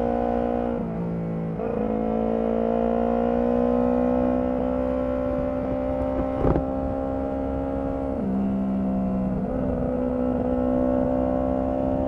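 Honda CB125T motorcycle's 125 cc parallel-twin engine running steadily while riding, its note dipping briefly in pitch about a second in and again about eight seconds in. A single sharp click sounds about six and a half seconds in, over low wind rumble.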